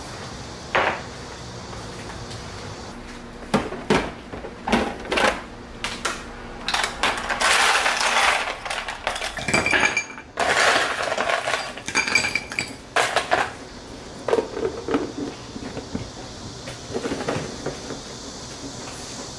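Ice cubes clinking and knocking as they are dropped into a tall glass tumbler, with a denser rattle of ice in the middle and a couple of short ringing glass clinks.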